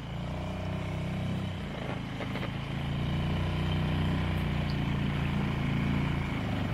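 Small outboard motor pushing a dinghy along at a steady speed, its propeller gripping again under load instead of slipping on its hub.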